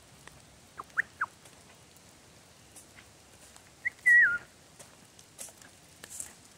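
A person whistling: three quick short chirps about a second in, then a longer note about three seconds later that wavers and drops in pitch.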